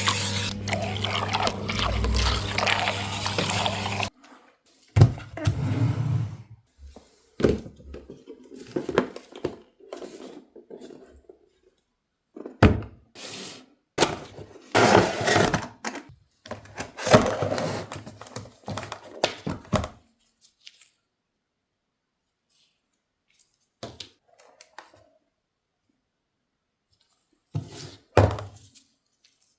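A steady, dense sound that cuts off suddenly about four seconds in. It is followed by irregular knocks, thunks and scrapes of objects being handled, which stop for several seconds and then return briefly near the end.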